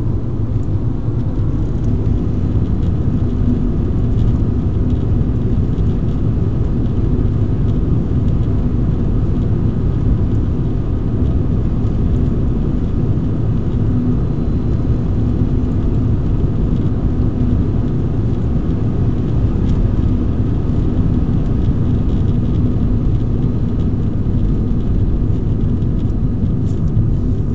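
Steady low road and tyre noise inside a moving car's cabin, with a faint steady hum underneath.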